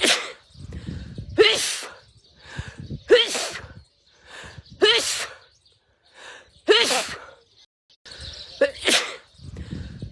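A woman sneezing, the same sneeze looped so it repeats about every two seconds, six times in all. Each is a short voiced intake of breath followed by a sharp, loud 'choo'.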